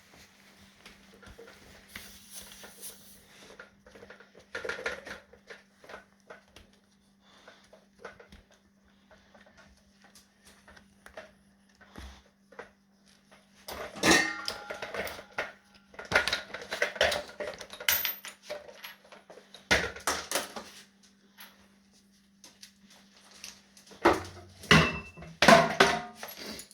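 Metal tools and scooter parts clinking and clattering as they are handled during wheel reassembly, in scattered knocks that grow louder and busier in the second half. A faint steady hum runs underneath.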